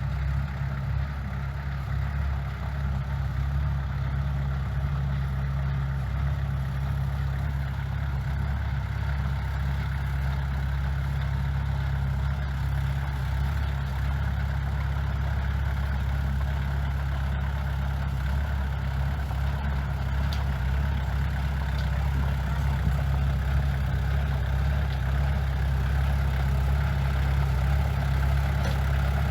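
Heavy diesel construction-machine engine running steadily with an even low rumble, at an idle-like pace without revving.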